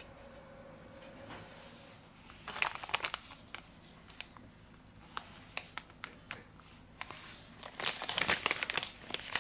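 Anti-static shielding bag around a replacement phone battery crinkling as it is handled. The crinkling comes in short bursts after a quiet start and grows denser and louder near the end.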